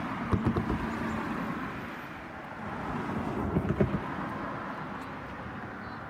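Road traffic passing, a steady rush of tyre and engine noise that swells a little near the middle, with two short clusters of close knocks about half a second in and again around three and a half seconds.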